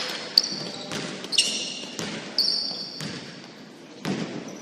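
A basketball bouncing on a gym court about once a second, with several short, high-pitched sneaker squeaks from players' shoes on the court.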